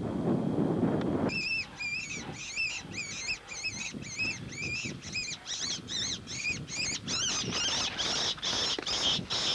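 Rapid high-pitched squealing calls, about three a second, that grow harsher and louder about seven seconds in.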